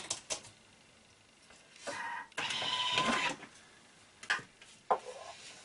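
Thermomix lid and mixing bowl being handled: clicks as the lid is unlocked and taken off, a scraping, whirring stretch of about a second and a half in the middle, then a few knocks of a spatula in the bowl of freshly chopped carrots.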